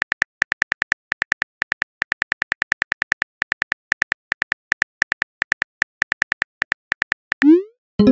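Rapid phone-keyboard tap clicks, about seven a second with brief pauses, as a text message is typed out. Near the end a short rising whoosh, the loudest sound, marks the message being sent.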